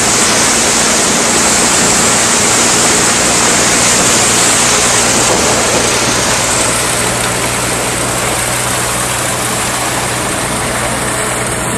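1939 Case threshing machine running under belt drive from a 1952 Case LA tractor, threshing wheat bundles as they are fed in. It makes a loud, steady rushing noise over a steady low drone.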